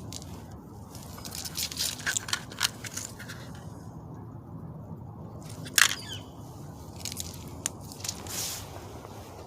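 Irregular clicks and rustles of hands working with objects, a cluster in the first few seconds and one sharp click just past the middle, over a steady low hum, with a couple of short falling bird chirps.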